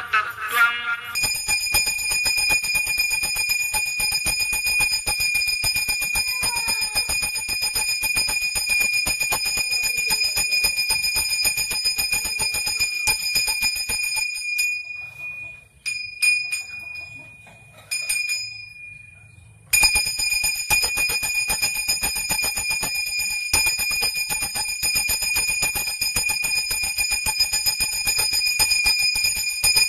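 Puja bell ringing rapidly and continuously during aarti. About halfway through it stops for some five seconds, then starts again abruptly.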